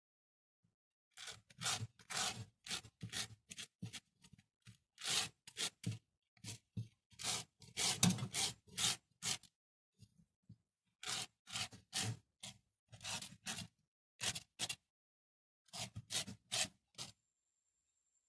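Hands working the substrate layer in a glass aquarium: short, irregular rustling and scraping sounds that stop about a second before the end.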